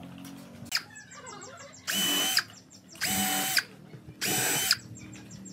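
Cordless drill/driver driving screws into a wooden bench frame, running in three short bursts of about half a second each at a steady whine.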